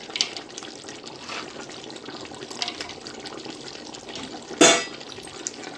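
Chicken in masala frying in a pot with a steady sizzle, with a few faint clicks and one sharp knock, the loudest sound, about four and a half seconds in.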